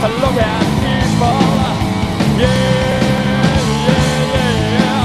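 Punk rock band playing a 1990 studio demo: distorted electric guitar, bass and drums. From about halfway in, a long note is held over the band and bends down twice before it ends.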